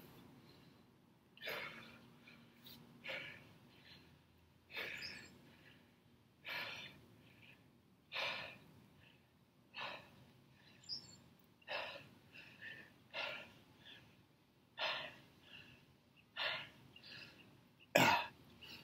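A man breathing out hard in short forceful puffs, about one every one and a half to two seconds, in time with dumbbell curls; the last one near the end is the loudest and most strained.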